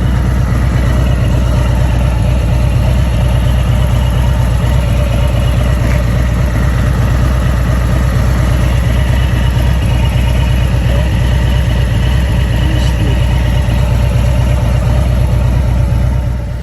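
Harley-Davidson Street Glide Special's V-twin engine running steadily, a loud low throb with an even pulse.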